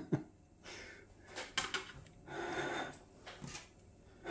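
Quiet handling noises: two sharp clicks right at the start, then soft rustles and a few light knocks.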